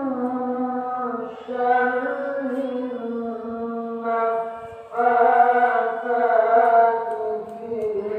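A single voice chanting in long held notes, with new phrases starting about a second in and again about five seconds in.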